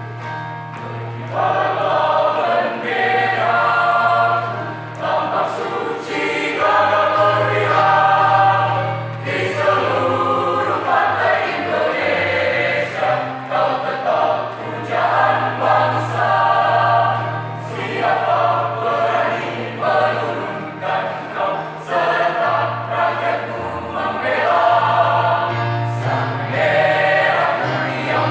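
High school choir singing an Indonesian patriotic song in several parts, phrase after phrase, over a steady low sustained note.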